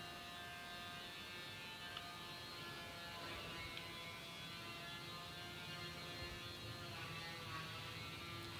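Faint, steady electrical hum made of several held tones, with a couple of light clicks from a silicone spatula turning chicken pieces in a pan.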